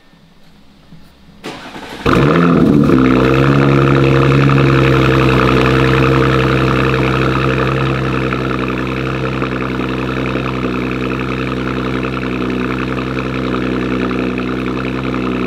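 2023 Audi RS5's 2.9-litre twin-turbo V6, breathing through 034 Motorsport downpipes and an AWE Touring exhaust, cold-started. After a brief crank it catches about two seconds in with a loud flare that drops in pitch, then settles into a steady cold idle.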